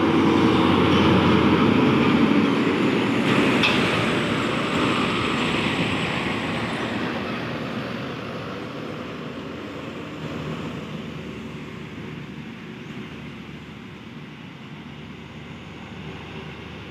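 Hino tanker truck's diesel engine and tyres passing close by, loud at first and then fading steadily as it drives away.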